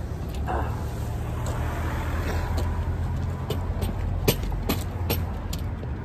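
Street traffic: a vehicle engine's low rumble that swells through the middle and fades near the end, with scattered light knocks and clicks, the sharpest about four seconds in.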